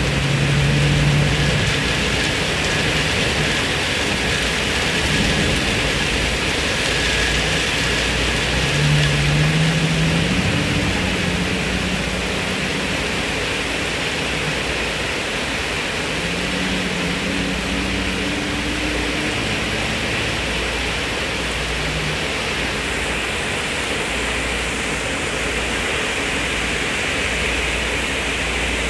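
Heavy rain falling steadily in an even hiss, with a low rumble of thunder in the first half that dies away.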